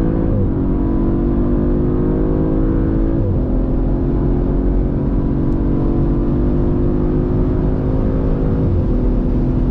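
Audi RS4 Avant engine accelerating hard through the gears, its pitch climbing slowly and dropping sharply at three upshifts: about half a second in, a little over three seconds in, and near the end.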